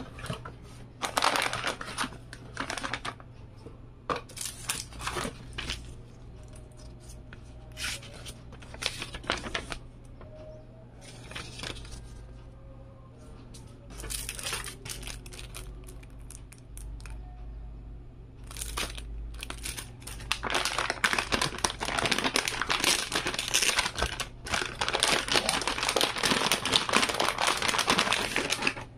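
Silver metallic anti-static bag crinkling and rustling as it is handled and opened to take out a graphics card, with cardboard packaging moved about. The crinkling comes in irregular bursts and becomes dense and loud over the last eight seconds or so.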